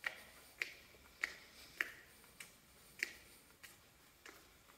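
Footsteps climbing concrete stairs: eight steady, sharp steps at an even walking pace, in an enclosed stairwell.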